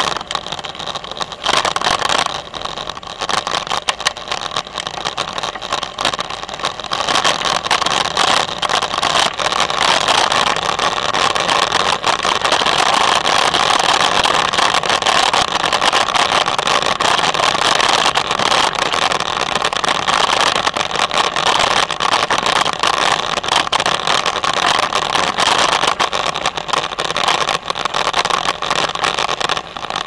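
Bicycle tyres rolling over a crushed-gravel trail, a steady dense crackle of gravel that grows louder about eight seconds in.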